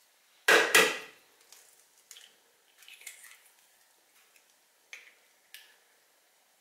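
An egg cracked with two sharp knocks on the rim of a mixing bowl about half a second in, then faint crackles and small clicks as the shell is pulled apart and the white is tipped into the bowl.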